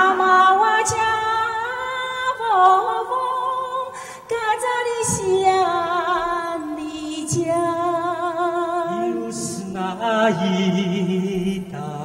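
A woman singing unaccompanied, holding long notes with vibrato. A second, lower voice joins about nine seconds in.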